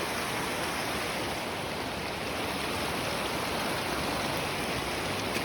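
Steady rush of flowing water, as from a mountain stream.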